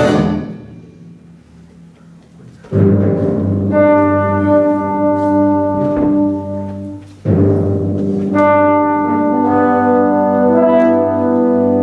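Symphonic wind band playing loud held chords with brass and timpani. A chord cuts off at the start and rings away in the hall, then the full band comes back in with a sudden loud attack about three seconds in and again about seven seconds in.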